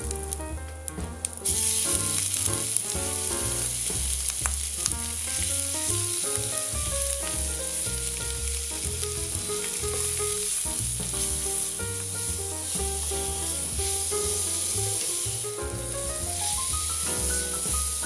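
Garlic and pork belly sizzling in hot oil in a frying pan, stirred with a spatula; the sizzle jumps much louder about a second and a half in. Light background music with a bass line plays throughout.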